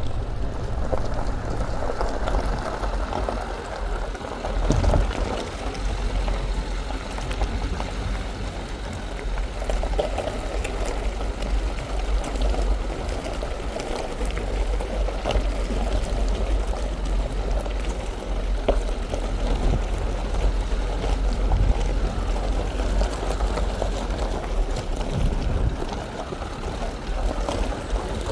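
Dacia Duster driving off-road: a continuous low rumble with a rushing noise over it and scattered knocks and clatters from the rough going.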